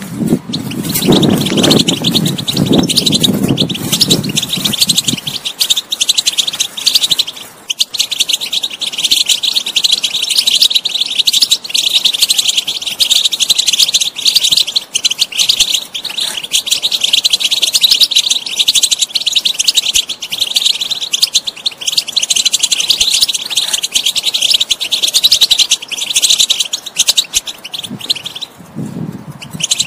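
European goldfinch singing a fast, continuous twittering song of chirps and trills, with a brief break near the end. A low rumble sits underneath for the first few seconds and returns near the end.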